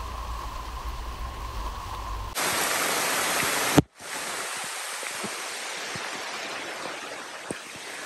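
Heavy tropical rain falling on forest foliage and a shelter roof: a steady hiss with scattered drips. It starts suddenly about two seconds in, after a low rumble with a faint steady hum, and drops out for a moment near the middle.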